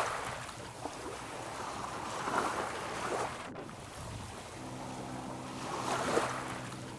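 Water rushing and splashing along a sailing ship's hull, swelling in surges about every three seconds, with wind on the microphone. Steady low tones of background music come in about four and a half seconds in.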